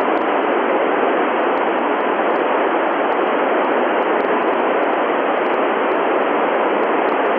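Steady loud hiss of a 2-metre FM receiver tuned to the ISS downlink on 145.800 MHz with no signal coming in: open-squelch static while the station is not transmitting between answers.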